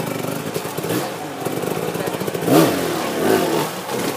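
Off-road motorcycle engine revving up and down in short blips as the rider hops the bike over logs, with the loudest burst about two and a half seconds in.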